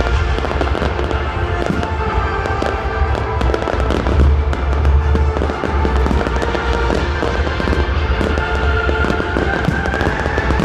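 Fireworks display: shells bursting with dense crackling and repeated deep booms, heaviest about four to five seconds in, over music with steady held tones.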